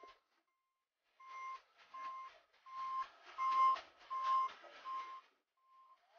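Electronic warning beeper on a tractor and sugarcane wagon, a single-pitched beep repeating about one and a half times a second, starting about a second in.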